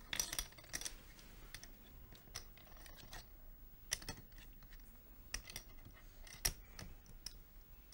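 Clay poker chips clicking together as players handle their stacks at the table: faint, irregular clicks and clacks, a few a second at most.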